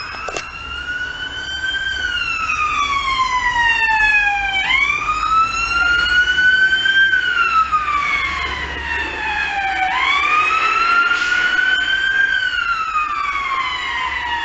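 Emergency vehicle siren sounding a slow wail. Each cycle jumps up, climbs, then slides down, and lasts about five seconds.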